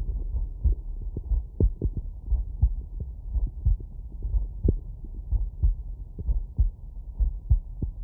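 Human heartbeat heard through a stethoscope: regular lub-dub thumps at about one beat a second, dull and muffled, with nothing above the low range.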